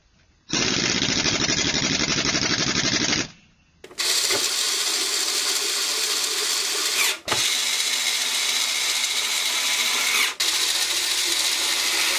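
Handheld electric screwdriver running as it drives screws into an oscilloscope's back case: a first run of about three seconds, a short pause, then a longer run broken twice for an instant. The screwdriver has no torque setting, so each run is stopped by hand near the end of the thread.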